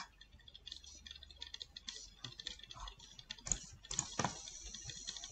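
Faint, scattered clicks and taps of a computer mouse and keyboard being worked, with two sharper clicks near the middle.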